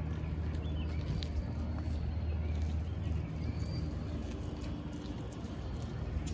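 BMW M4's twin-turbo straight-six idling steadily with a low, even hum.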